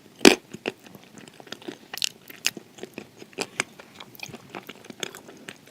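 A person biting into dry edible clay and chewing it close to the microphone: a loud bite just after the start, then irregular crisp crunches and clicks.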